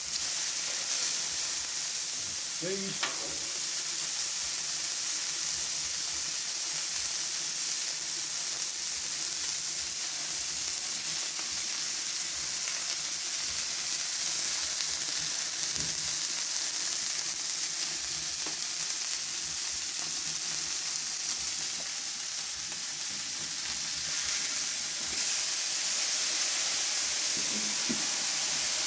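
Beef smash burger patties sizzling steadily on the hot steel top of a Char-Griller flat iron griddle. About 25 seconds in the hiss grows louder as a burst of steam rises under a basting dome set over the patties to melt the cheese.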